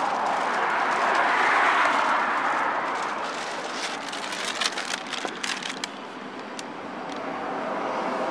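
Road noise from inside a moving vehicle: a steady rush of tyres and engine that fades through the middle and swells again near the end, with a few light clicks and rattles about halfway through.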